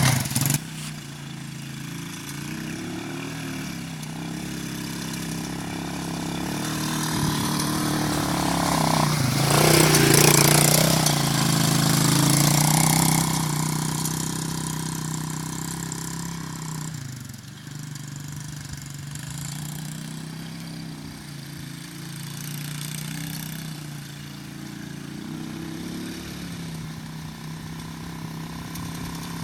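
125cc ATV engine running, its pitch rising and falling with the throttle. It revs up louder about a third of the way in, then drops back to a steadier low run for the rest.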